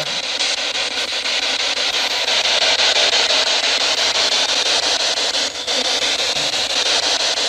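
Spirit box sweeping through radio frequencies, giving a steady, loud hiss of radio static.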